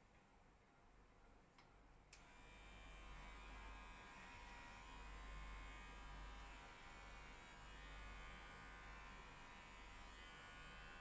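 Electric hair clipper switched on with a click about two seconds in, then buzzing faintly and steadily as it trims a cat's fur.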